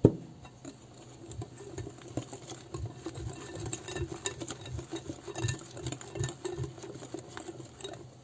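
Wire balloon whisk beating thin cake batter in a glass bowl: fast, irregular clicking and tapping of the wires against the glass, with a wet sloshing underneath. A single sharp knock comes at the very start.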